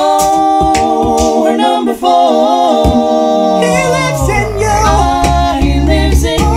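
Male a cappella group singing a held chord in close harmony, with no bass under it at first. Around the middle a bass voice slides down into a very low sustained note, about G#1 (52 Hz), under the group's next chord.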